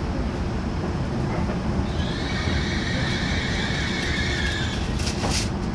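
E5 series Shinkansen heard from inside the car: a steady low running rumble as the train rolls slowly along the platform. From about two seconds in, a high, held brake squeal that fades near five seconds as the train slows to its stop, followed by a few sharp clicks.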